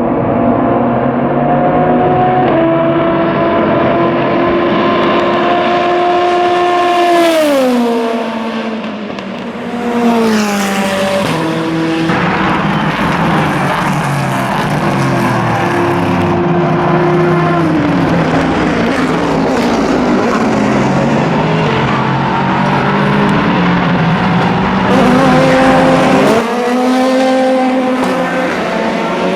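Endurance race cars running at speed, several engines overlapping. Engine pitch holds and steps between gears, falls steeply twice early on as cars brake or go by, and climbs again near the end.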